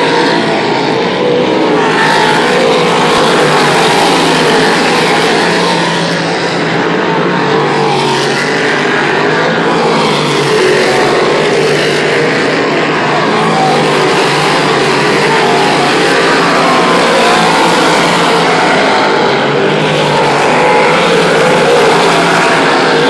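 A field of big-block V8 modified race cars racing around the track together, a loud, continuous engine noise that swells and fades every few seconds as cars come past and move away.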